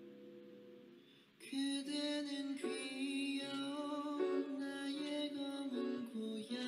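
A piano chord dying away, then about a second and a half in a male vocalist starts singing long, held notes with a slight vibrato over soft backing.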